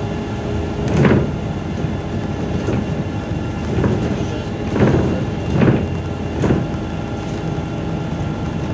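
MAZ 203 city bus heard from inside while driving: a steady engine and road drone with faint steady whines, and several short louder rattling jolts, one about a second in and three more in the middle.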